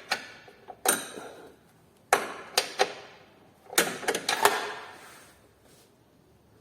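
Metal hand tools clinking and knocking against steel suspension parts of a car while a nut is being worked loose: a few sharp clanks with a short ring, in small clusters about a second apart, fading out near the end.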